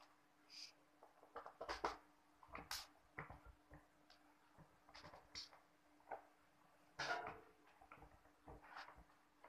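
Faint scattered clicks and short rustles of hands handling a plastic computer keyboard and its small screws during reassembly.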